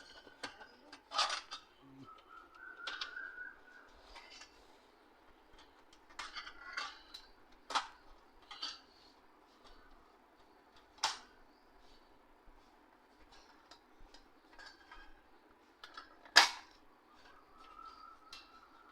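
Irregular clicks, taps and knocks of printer parts and tools being handled by hand during reassembly, with a few sharper clicks standing out and the loudest a little before the end.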